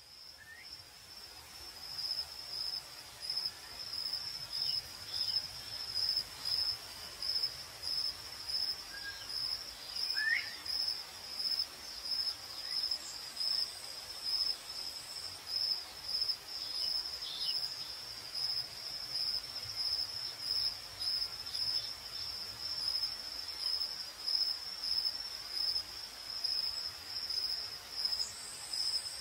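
Crickets chirping in a steady, even pulsing rhythm, fading in over the first two seconds, with a few faint higher calls here and there.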